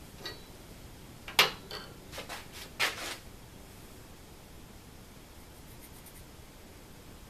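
A steel square clicking and tapping against an aluminum bar as it is handled and taken away, with two sharper taps among several lighter clicks, followed near the end by faint pencil strokes scratching layout marks onto the aluminum.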